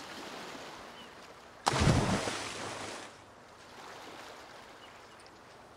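A sudden loud splash of a body plunging into the sea about two seconds in, fading over a second or so, over gentle waves washing on the shore.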